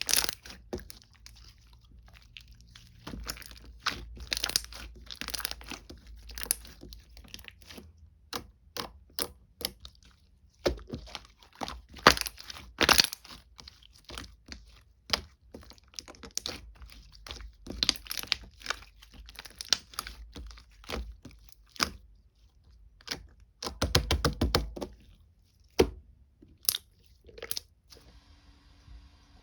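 Slime being squeezed, pressed and poked by hand, giving repeated sharp crackles and pops. A quick run of crackles comes about three quarters of the way through, and the sounds stop shortly before the end.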